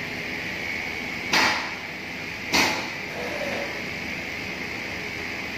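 Steady whirring hiss of the CNC laser engraving machine's fans running, with two sharp knocks a little over a second apart.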